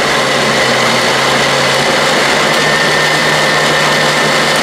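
Countertop blender running steadily, a motor hum with a high whine over the churning, as it purées canned SpaghettiOs into a thick paste.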